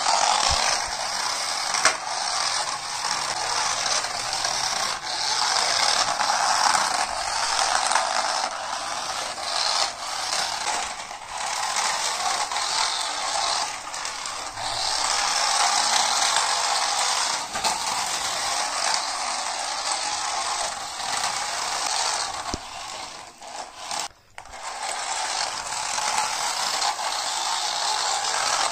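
A toy remote-control car's small electric motor and plastic gears whirring as it drives, the sound rising and falling with the throttle. It cuts out briefly a few seconds before the end, then starts again.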